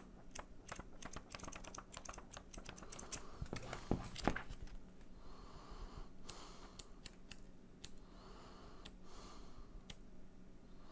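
Paper handling: a printed instruction booklet being held and its pages turned. The first four seconds carry a quick run of crisp paper ticks and crackles, with two louder ones about four seconds in, then softer, scattered page rustles.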